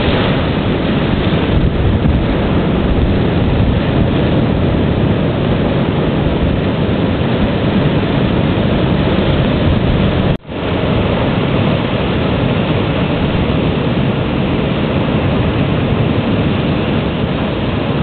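Loud, steady wind noise buffeting the microphone, a rumbling roar with no pitched tone in it, which breaks off for an instant about ten seconds in.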